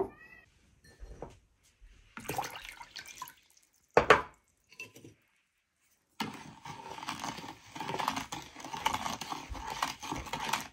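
Metal spoon stirring sugar into water in a plastic bowl to dissolve it, a continuous scraping stir that starts about six seconds in. Before it come a few scattered knocks and clinks, the sharpest about four seconds in.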